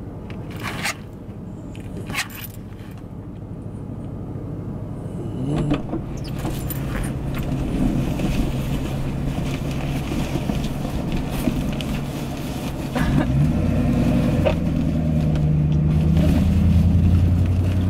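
Car engine idling, heard from inside the cabin, with a few knocks and rubbing as helium balloons are pushed into the back seat.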